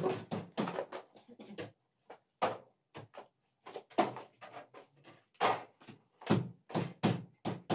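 A series of irregular knocks and thuds, about a dozen short sharp hits with brief quiet gaps between them.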